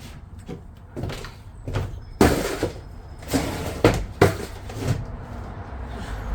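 A run of about seven knocks and thuds against a van's sheet-metal body and panels, typical of handling and pressing sound-deadening material onto the inside walls. The loudest come from about two to four and a half seconds in.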